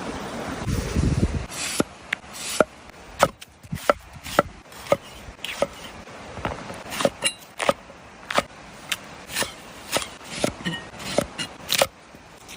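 Repeated sharp chopping strikes on wood, at an uneven pace of roughly two a second, after a brief low rumble at the start.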